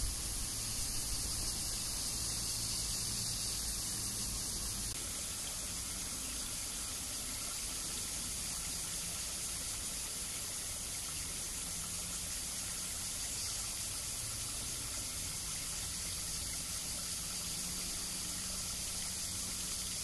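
A chorus of cicadas, a steady high-pitched hiss that never lets up.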